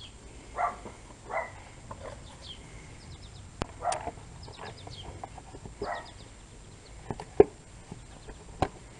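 A few short animal calls, with faint high chirps between them and three sharp clicks; the loudest click comes about seven and a half seconds in.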